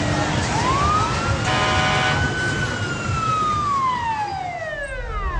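One long wolf howl that rises, holds, then slides slowly down in pitch, over a steady hiss.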